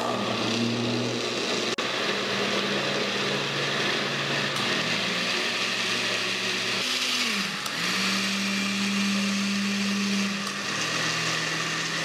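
Countertop blender switched on and running, blending a thick banana pudding batter. The motor hum shifts pitch a few times, dipping and recovering briefly about seven seconds in.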